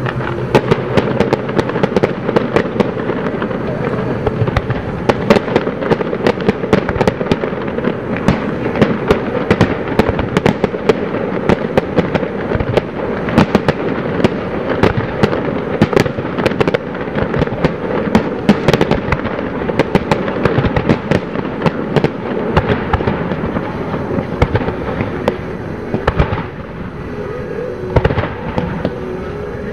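Fireworks display: a dense, continuous barrage of aerial shell bursts and crackling reports in quick succession, easing off briefly near the end.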